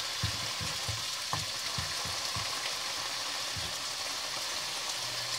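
Chunks of potato and carrot sizzle steadily as they sear in a sauté pan. A wooden spatula stirs them, knocking lightly against the pan several times in the first three or so seconds.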